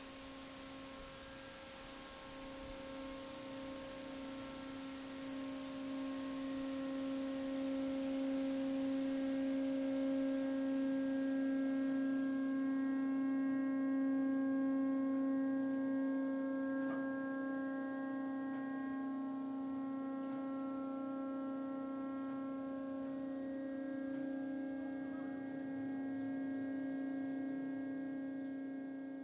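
A steady humming drone with several overtones swells slowly and then fades out near the end.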